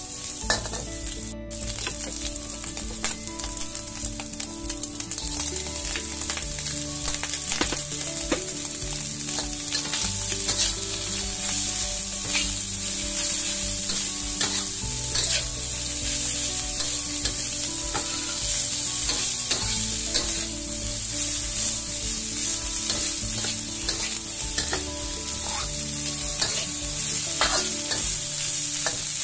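Sliced shallots and garlic, then chopped green beans, sizzling in oil in a hot wok while a spatula stirs and scrapes them, with frequent scraping clicks over a steady hiss.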